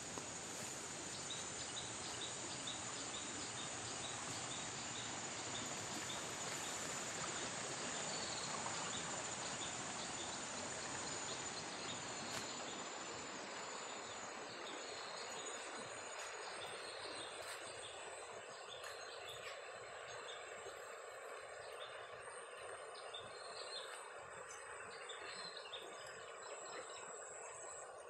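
Rural outdoor ambience: insects chirping in rapid, repeated pulses over a steady hiss, with scattered higher chirps. The hiss eases off about halfway through.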